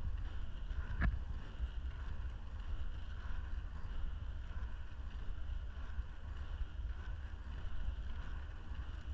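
Inline skate wheels rolling steadily on an asphalt road, with wind noise on the microphone and one sharp click about a second in.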